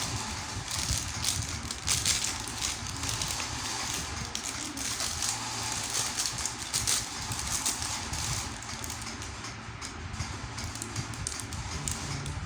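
Handling noise from a stainless steel link watch strap: a steady run of small clicks and rattles mixed with rustling as it is turned in the hands.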